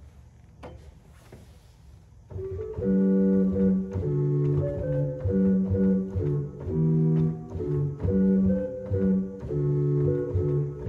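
1890 Roques pipe organ playing a chordal passage on its Violon 8' string stop alone, starting about two seconds in with sustained chords that change every half second or so. Before the playing there is a single click at the console as a stop is set.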